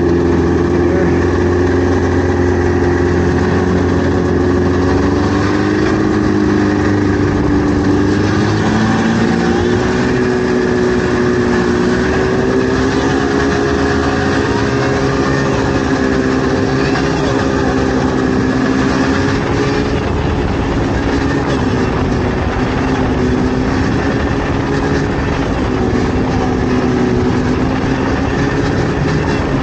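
Vintage snowmobile engine running steadily while riding, its pitch drifting up and down a little with the throttle.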